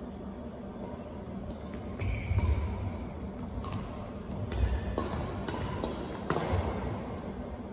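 Badminton rally: rackets striking the shuttlecock with several sharp hits roughly a second apart, mixed with the dull thuds of players' footsteps and lunges on the court.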